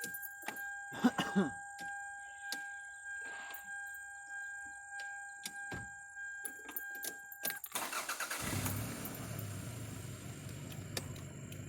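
A 1997 Toyota Camry being started: a steady electronic warning tone sounds alongside a few switch clicks, then about eight seconds in the starter cranks briefly and the engine catches and settles into a steady idle.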